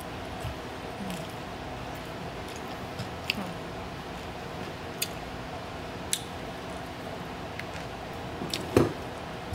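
Someone eating kale Caesar salad: quiet chewing with a few short sharp clicks spread out, and a louder knock near the end.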